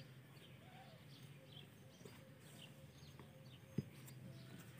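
Faint outdoor ambience: distant birds chirping over a low steady hum, with one short knock near the end.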